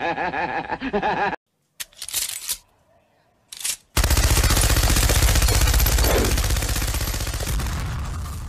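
A man laughing briefly, then two short clacks. About four seconds in, a long burst of rapid machine-gun fire starts and slowly fades toward the end.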